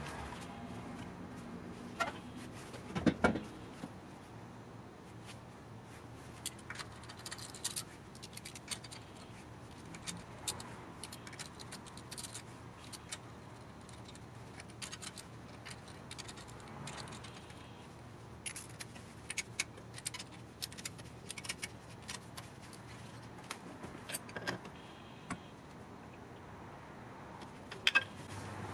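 Irregular metallic clinks and taps of hand tools and metal wheel hardware being handled, with a few louder knocks about three seconds in and near the end.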